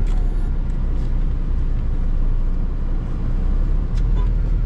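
A motor vehicle running steadily with a heavy low rumble, heard while travelling.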